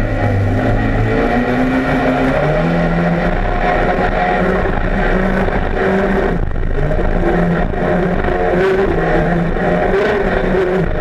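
Jersey speed skiff's racing engine running hard at speed, its pitch shifting up and down, with wind and water rushing past the open cockpit.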